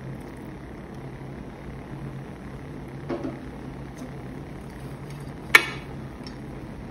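Kitchen utensils handled over a steady low hum: a soft double knock about three seconds in, then a sharp clink, the loudest sound, near the end.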